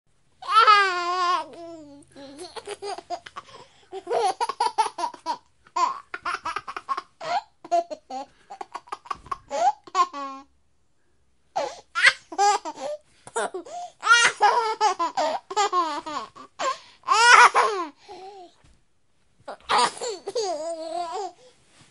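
A baby laughing and babbling in high-pitched bouts of giggles, broken by two short pauses.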